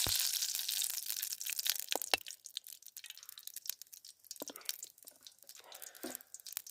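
Cooking oil sizzling in a hot pot, the hiss dying away within the first couple of seconds into scattered crackles and pops. The pot has overheated and scorched.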